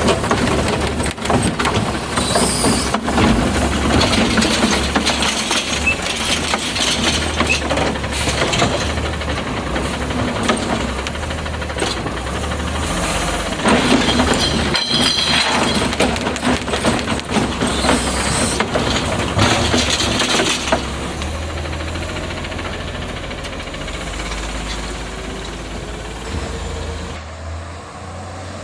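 Autocar CNG garbage truck with a Heil Rapid Rail side-loader body running, its engine rising and falling in loudness, with several sharp knocks in the first half. It grows quieter over the last few seconds.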